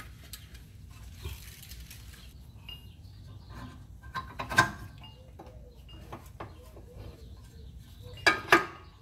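Metal-on-metal clinks and taps as a scissor jack is set and worked under the car's front suspension. There is one sharp ringing clink about halfway through, and two more in quick succession near the end.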